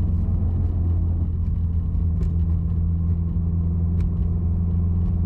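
Turbocharged car engine running at steady low revs while driving, an even low hum with no revving, with a few faint ticks.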